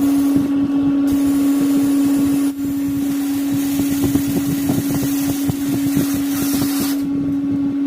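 A machine running with a steady hum and a dense rattle, cutting off abruptly at the end.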